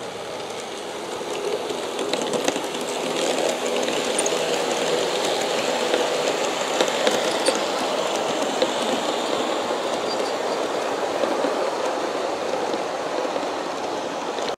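G-scale model passenger train (Aristo-Craft E9 diesels pulling heavyweight cars on three-axle trucks) rolling past on garden railway track. Its metal wheels on the rails give a steady rumble with scattered light clicks and a faint steady hum. It grows louder over the first few seconds as the train comes near.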